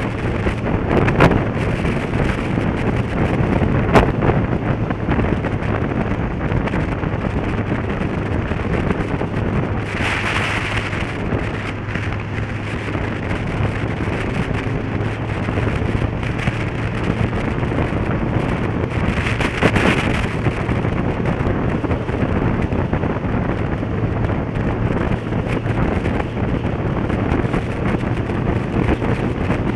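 Steady road and wind noise from a moving motorcycle, engine hum underneath and wind on the microphone. Two louder rushing swells come about ten and twenty seconds in, and a couple of sharp clicks come in the first few seconds.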